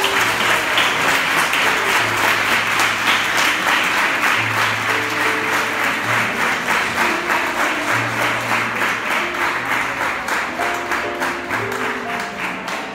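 Audience applauding steadily, tapering off slightly near the end, with background music playing underneath.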